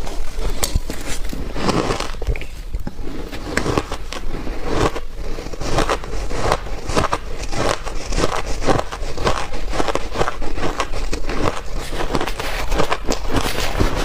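Close-miked bites into soft, powdery freezer-frost ice, a quick run of crunches several times a second.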